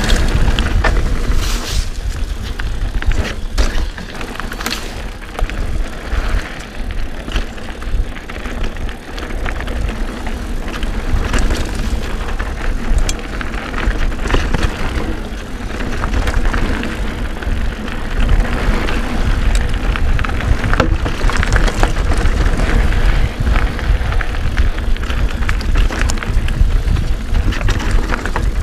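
Mountain bike riding fast down a bumpy dirt singletrack, heard from a handlebar-mounted camera: a constant wind rumble on the microphone, with tyre noise and frequent rattles and knocks from the bike jolting over roots and rocks.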